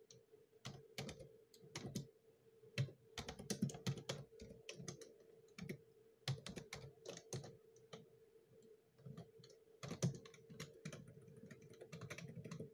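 Typing on a computer keyboard: irregular runs of keystrokes with short pauses between them, over a faint steady hum.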